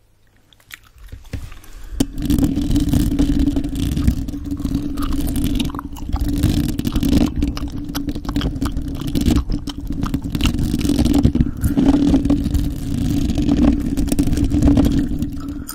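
Fingertips and long nails rubbing and scratching directly on a microphone's metal grille: a loud, dense rumble with many scattered scratchy clicks. It starts about two seconds in, after a near-quiet moment.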